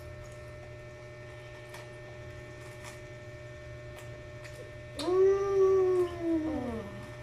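A child's long drawn-out "mmm" of enjoyment while chewing, rising slightly and then sliding down in pitch, starting about five seconds in and lasting about two seconds. Before it, only a few faint eating clicks.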